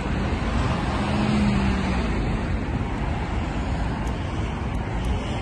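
Road traffic noise: a steady rumble of passing cars, with one vehicle's engine hum swelling and fading about a second in.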